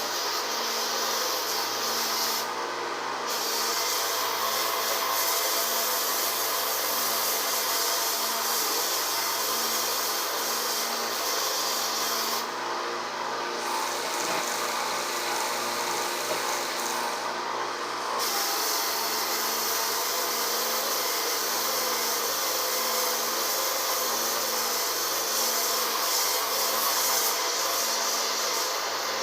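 Electric belt sander running steadily with its abrasive belt grinding on masonry, the scraping dropping out briefly three times as the tool comes off the work while the motor keeps running. The belt is barely taking the stone down.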